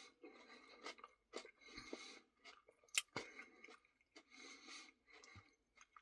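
Quiet, close chewing of a mouthful of Dairy Queen cookie Blizzard ice cream: soft wet mouth sounds with a few small clicks and smacks, the sharpest about three seconds in.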